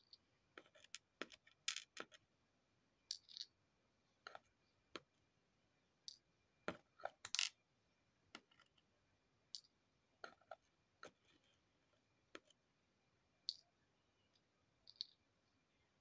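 Tweezers and small gold nuggets clicking faintly as the nuggets are set one by one into the small pan of a digital pocket scale: sharp little ticks and taps at irregular intervals. A faint steady high tone sits underneath.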